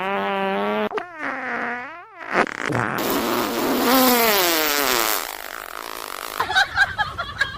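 Prank wet-fart sound effects: a long steady blast, then a shorter one that dips in pitch and rises again, then a long wavering, sputtering one that falls in pitch at its end. Short clicks and knocks follow near the end.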